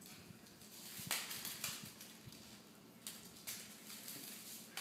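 A cat's booties scuffing and tapping on a ceramic tile floor as it walks stiffly, a handful of irregular soft scrapes.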